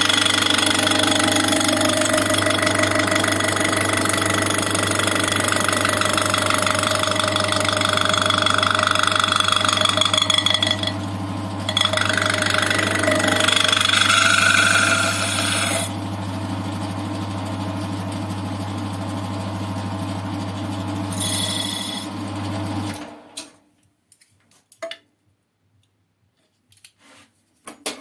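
CJM280 benchtop lathe running with a steady motor hum and the varying noise of a tool cutting the workpiece, which eases to a lighter, even running about two-thirds of the way through. The lathe is switched off near the end and falls quiet apart from a few light clicks.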